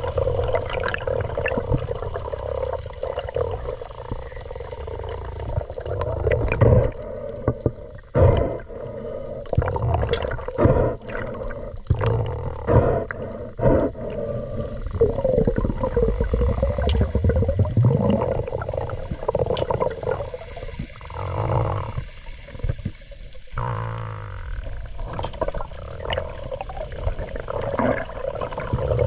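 Muffled underwater sound picked up by an action camera in its waterproof housing: a steady murky wash of water noise broken by irregular knocks and clicks against the housing.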